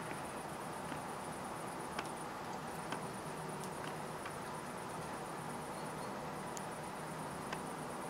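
Faint, sharp clicks every second or so, a blue tit's beak pecking at peanuts through a wire-mesh feeder, over a steady hiss with a thin high-pitched drone.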